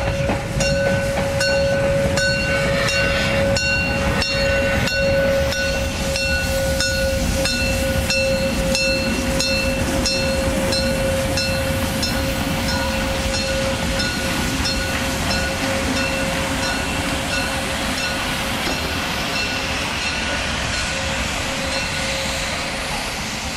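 A steam-hauled train of passenger coaches rolling slowly past over the station points. One long, steady wheel squeal runs through it, over a low rumble and a regular clacking of wheels over the rail joints.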